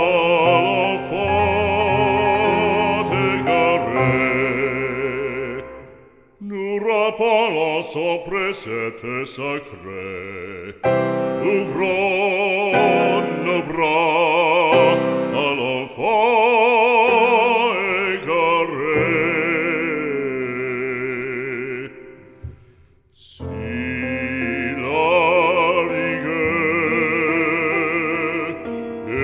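Background music: operatic singing with heavy vibrato over classical accompaniment, fading briefly about six seconds in and again near the end.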